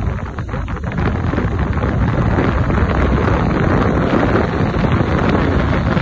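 Wind noise rushing and buffeting the microphone of a moving car, loud and steady, with a brief lull about half a second in.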